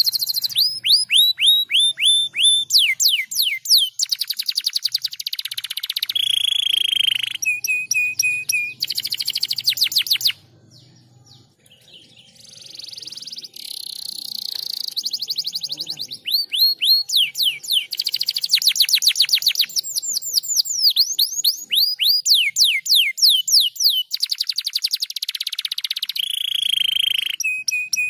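Domestic canary singing a long song of fast trills, rapid runs of falling notes and a few held whistles. It falls quiet for about two seconds near the middle, then starts again.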